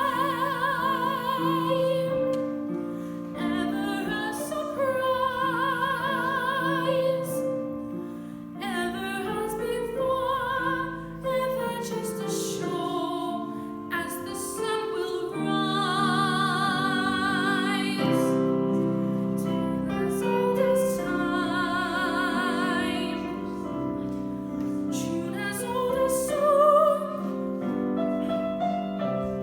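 A solo singer singing long held notes with a wide vibrato, in an operatic style, over piano accompaniment.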